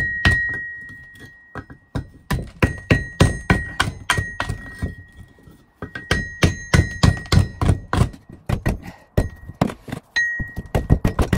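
Repeated hammer blows in quick runs, about two to three a second with short pauses, and a metallic ring after many strikes: rusty iron being bashed to knock the rust off for mineral powder.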